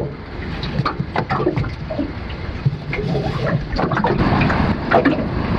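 Water splashing and sloshing, with many irregular short slaps.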